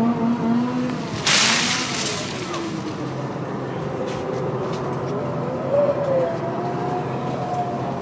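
An engine running and revving up and down in pitch, not close by, with a short, loud hiss about a second in.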